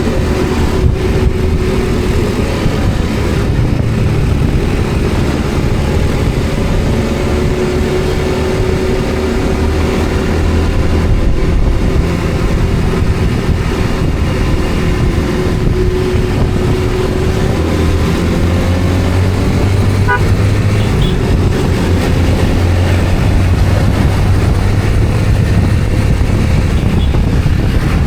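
Steady low engine and road noise from a vehicle on the move.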